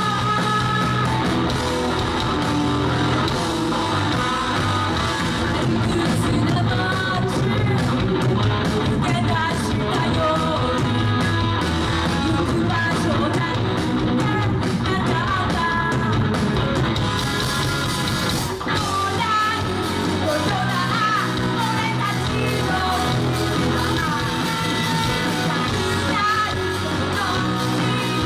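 A live rock band playing a song, with a lead vocalist singing over electric guitars.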